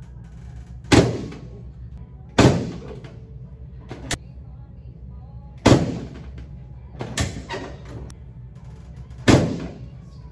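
Chiropractic drop table's pelvic section dropping under the chiropractor's thrusts during a pelvic adjustment: four loud, sharp clacks a few seconds apart, with a few smaller knocks between, over quiet background music.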